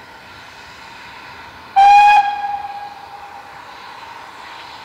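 GWR Small Prairie No. 4555's steam whistle giving one short, loud blast about two seconds in, dying away over about a second, over the steady steam hiss of the approaching tank engine. It is sounded at the lineside 'SW' whistle board as a warning.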